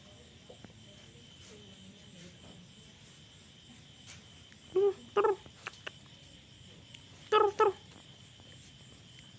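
Small puppy giving short, high-pitched yaps in two quick pairs, about five seconds in and again two and a half seconds later.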